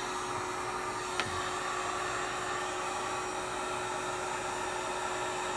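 Heat gun running steadily, blowing hot air with an even rush and a faint constant motor whine, warming a tablet to soften the adhesive holding its digitizer to the plastic frame. A faint tick about a second in.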